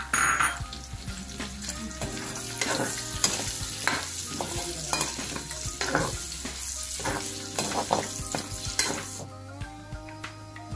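Pork belly pieces with onion and garlic sizzling in hot oil in a wok, while a spatula stirs them, knocking and scraping against the pan again and again. The stirring stops about nine seconds in and the frying sizzle carries on more quietly.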